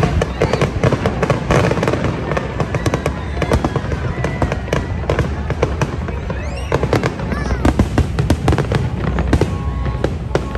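Aerial fireworks shells bursting in quick, irregular succession, many sharp bangs and crackles over a low rumble, with whistling pitch glides about six to seven seconds in.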